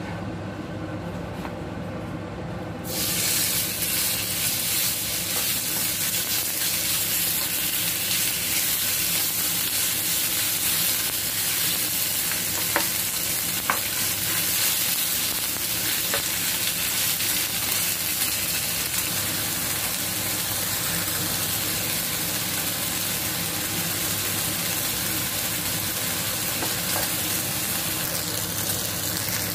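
Sliced marinated chicken frying in oil in a nonstick pan: a steady sizzle that gets louder about three seconds in, with a spatula stirring and a few sharp taps against the pan.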